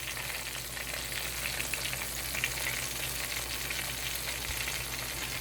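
Flour-battered turkey chops frying in hot corn oil: a steady sizzle with fine crackling and popping of the grease.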